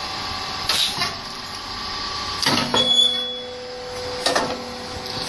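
SYP rice cake popping machine running: a steady mechanical hum broken by a sharp clack roughly every two seconds as the press cycles.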